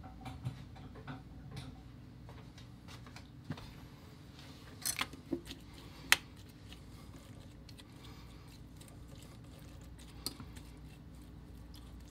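Plastic spoon stirring and breaking up wet chunks of food in a stainless steel bowl: scattered light clicks and taps against the metal, the sharpest about six seconds in.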